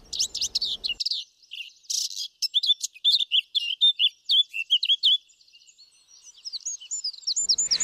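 Eurasian blackcap singing: a rapid, high warbling song in two phrases, with a short pause about five seconds in.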